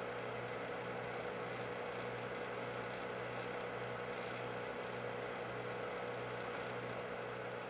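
Steady electrical hum under an even hiss, like a running computer or other electronics, fading out near the end.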